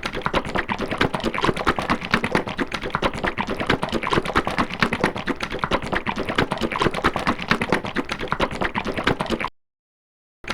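Rapid, irregular clicking and tapping, many clicks a second, that cuts off abruptly about nine and a half seconds in.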